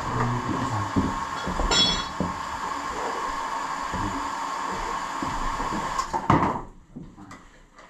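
Wooden boards knocking and scraping on a concrete floor as they are handled, over a steady mechanical hum. There is a short squeak a little under two seconds in, and the hum cuts off about six and a half seconds in.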